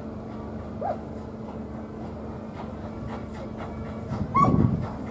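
A dog whines briefly about a second in and gives a short bark near the end, over the steady hum and faint, regular chuffing of a small steam locomotive approaching slowly along the line.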